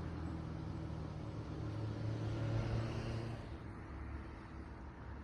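A road vehicle passing, its engine and tyre noise growing louder to a peak about halfway through and then fading away.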